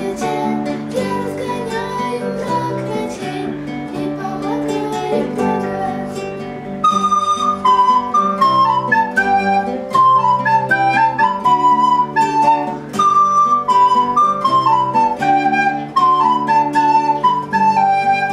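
Nylon-string classical guitar playing chords on its own for about seven seconds, then a recorder comes in loudly with a melody of repeated falling phrases over the guitar accompaniment, an instrumental interlude between sung verses.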